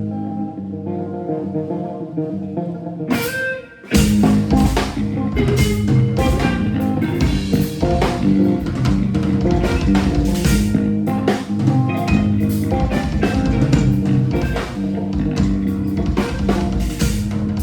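Band music: guitar playing alone at first, then a full band with drums comes in about four seconds in and carries on.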